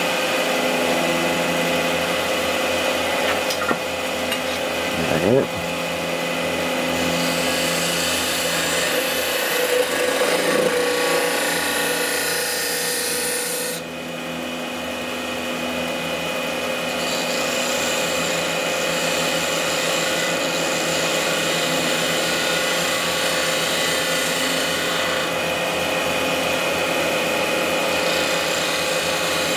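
Wood lathe running while a bowl gouge cuts a spinning exotic-wood blank: a steady motor hum under the hiss of shavings coming off, easing briefly about halfway through.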